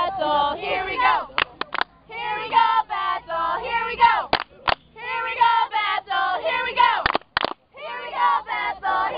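Several young voices shouting and cheering over one another, their calls sliding up and down in pitch, with a few sharp clicks in between and brief lulls.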